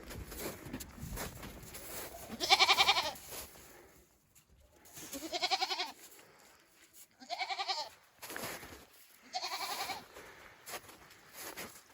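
Goats bleating: four wavering bleats, each under a second long, about two seconds apart.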